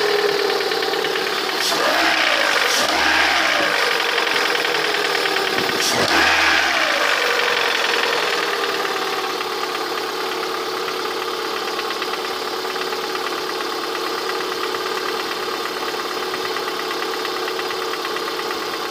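VAZ-21126 1.6-litre 16-valve four-cylinder engine revved briefly three times in the first six seconds, then settling back to a steady idle. Through it runs an unidentified knock that the owner is trying to diagnose.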